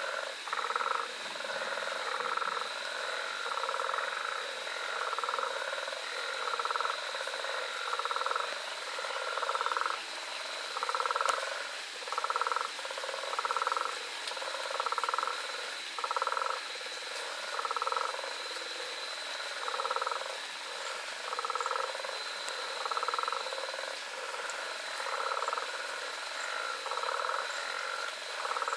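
Chorus of frogs calling in short repeated notes, many overlapping at roughly one a second, over a steady high-pitched tone.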